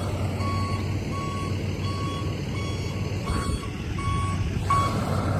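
Backup alarm on an International MV vacuum truck beeping steadily as the truck reverses, about one and a half beeps a second, over the truck's engine running low underneath.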